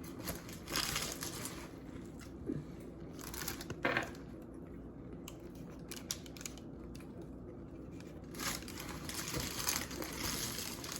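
Close-mic eating of a large stacked burger: chewing and crinkling of its paper wrapper in short spells, about a second in, around three to four seconds in, and again from about eight and a half to ten seconds.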